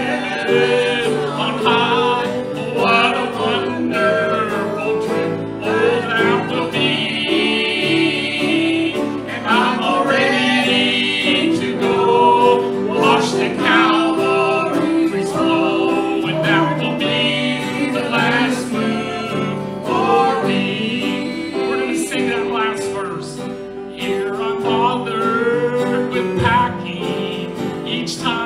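Live gospel song: a man singing while strumming an acoustic guitar.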